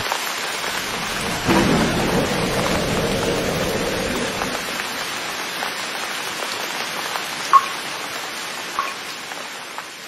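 Steady rain falling, with a low roll of thunder that swells about one and a half seconds in and dies away. Two brief sharp ticks come later, and the rain gradually fades.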